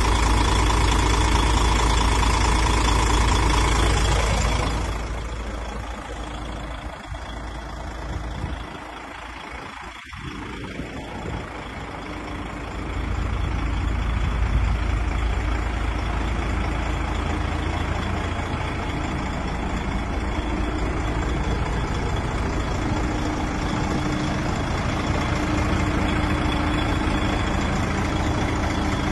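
DAF XF 105 tractor unit's 12.9-litre PACCAR MX six-cylinder diesel idling steadily. It is loud at first, then drops about five seconds in and steadies again from about thirteen seconds.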